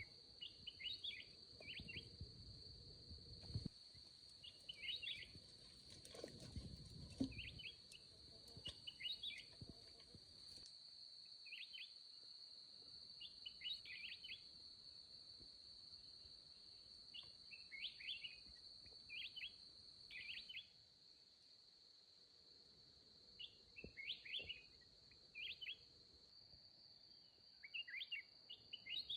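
Faint forest ambience: a steady, high-pitched insect drone with a bird's short chirping calls repeating every second or two.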